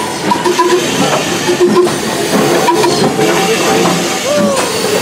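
Steam hissing from the cylinder drain cocks of an Ivatt Class 2MT 2-6-0 steam locomotive as it moves slowly.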